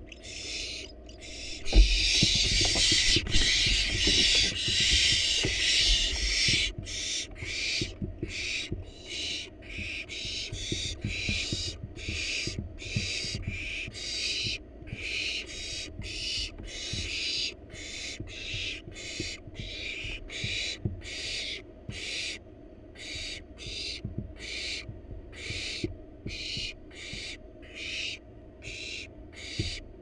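Barn owl nestlings' hissing begging calls, repeated about every half second. About two seconds in there is a thump, and the hissing swells into one continuous loud hiss for about four seconds before breaking back into separate calls, the nestlings begging as a parent arrives with food.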